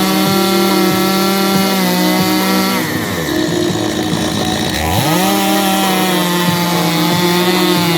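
Chainsaw running at high revs; about three seconds in the revs drop for roughly two seconds, then climb back up to full speed.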